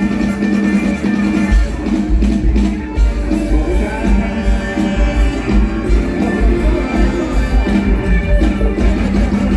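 Live mor lam band music with a steady, heavy bass beat and sustained instrument lines.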